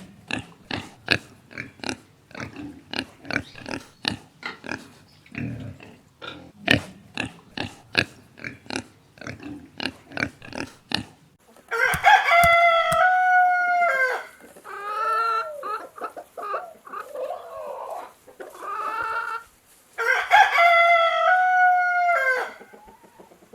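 A rapid run of short animal calls, several a second, for about the first half. Then a rooster crows twice, long stepped calls, with shorter calls in between.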